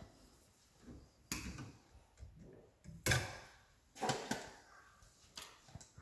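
Irregular clicks and light knocks of electrical wires and cable being handled at a wall-mounted electrical box, about half a dozen, the loudest about three seconds in.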